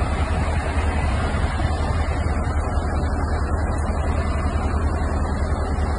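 Sea-cleaning boat's engine running steadily, a deep, even hum.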